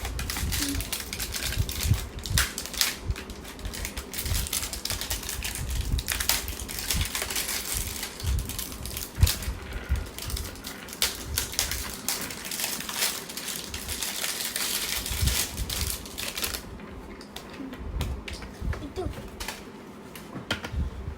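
Small plastic toys and their packaging being handled, unwrapped and set down: a dense run of quick clicks, clatters and rustles that thins out near the end.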